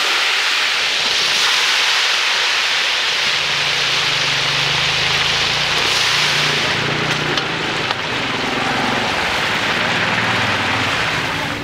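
Chicken pieces deep-frying in a large wok of oil over a wood fire: a loud, steady sizzle. From about three seconds in, a low engine hum runs underneath.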